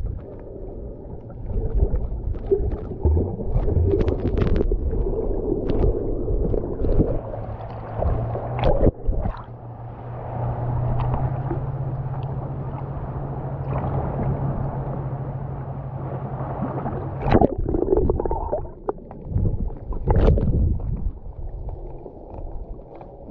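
Water sloshing and gurgling around an action camera as it dips in and out of the bay, sounding muffled while under the surface, with irregular splashes. A steady low hum runs through the middle.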